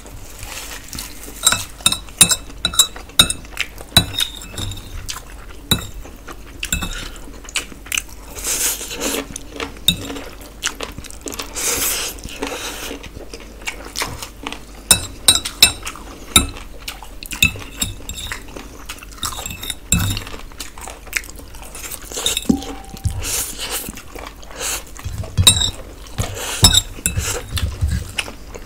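Close-miked eating sounds: a fork clinking and scraping on a plate of noodles and fingers working rice on a steel platter, with many sharp irregular clinks and stretches of chewing.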